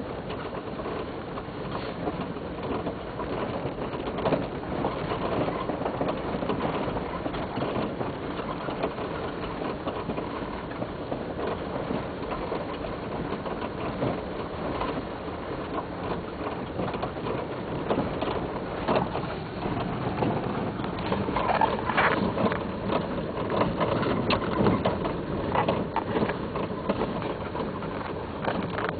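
Nissan AD with continuous road and running noise and irregular short clunks and rattles from the left side, more frequent and louder from about 18 to 26 seconds in. The knock began after a strut spring was replaced, and the owner thinks it is the steering rack.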